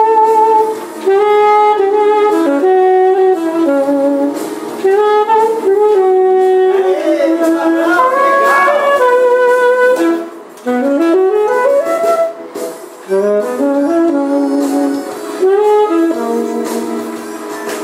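Saxophone played live: a jazzy melody of held notes joined by several upward slides into notes.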